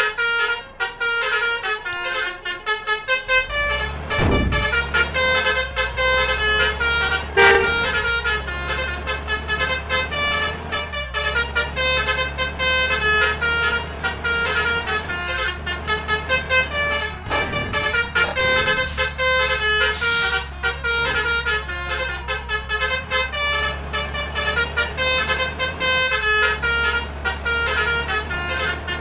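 Basuri multi-tone musical bus horns ('telolet') playing a quick tune of short notes that step up and down, with a steady low engine hum underneath from about four seconds in.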